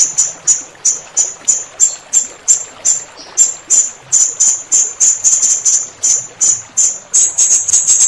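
Blue-crowned hanging parrot (serindit) calling a long run of sharp, high-pitched chips, about three a second, that crowd into a fast chatter about seven seconds in, over a faint steady hiss of running water.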